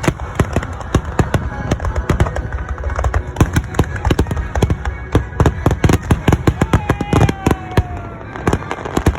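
Fireworks display finale: a dense barrage of aerial shell bursts, many bangs a second, with a whistle falling in pitch about three-quarters of the way through.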